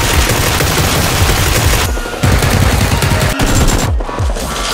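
Rapid automatic gunfire in long bursts, broken by a short pause about two seconds in.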